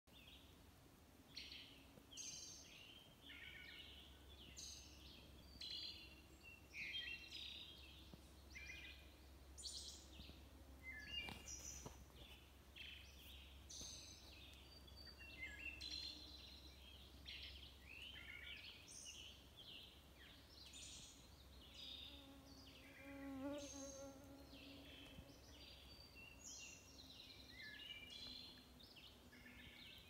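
Wood thrush singing its fluty, varied phrases one after another, with other songbirds, likely red-eyed vireos, joining in. A deer fly buzzes close to the microphone for a few seconds about three-quarters of the way through.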